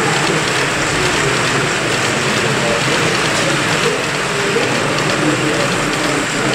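Model freight train of hopper wagons rolling past on a layout's track: a steady, even rolling noise from its many small wheels.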